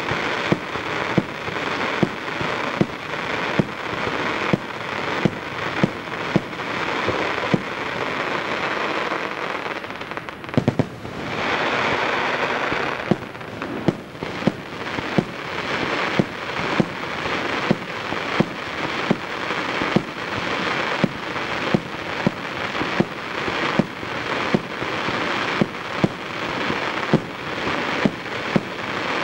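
Aerial firework shells bursting in quick succession, nearly two loud bangs a second over continuous crackling. About ten seconds in, the bangs thin out for a couple of seconds under a dense wash of crackle before the rapid bursts resume.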